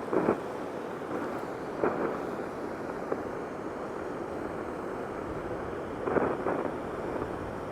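Steady rush of wind and ocean surf on the coast, with three brief louder swishes.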